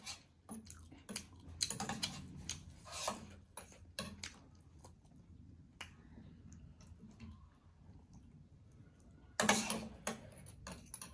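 Steel fork and spoon clicking and scraping against a small steel bowl as a momo is cut up in its soup, with close-up chewing between the cuts. The densest clusters of sound come about two seconds in and again near the end.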